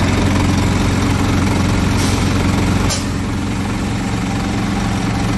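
Scania P360 truck's diesel engine idling steadily, with a short sharp click about three seconds in.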